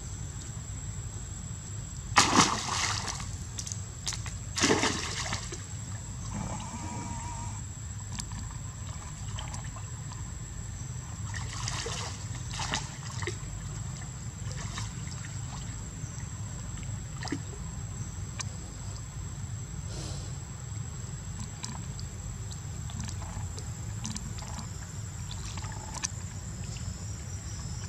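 Splashing as young macaques jump into a pool and swim: two loud splashes about two and four and a half seconds in, then a run of smaller splashes and light sloshing and dripping water, over a steady low rumble.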